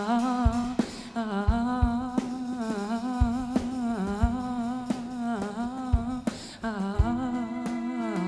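Live band playing an instrumental passage without lyrics: a held, pitched line wavering up and down in even swells, over scattered low drum thumps.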